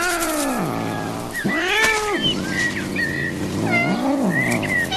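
Domestic cat yowling: three long, drawn-out meows, each rising and then falling in pitch.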